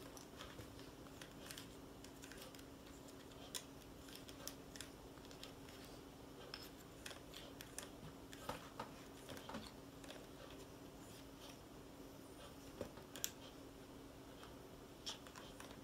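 Small plastic spoon stirring and scraping in a plastic candy-kit tray: faint, scattered clicks and taps over a steady low hum.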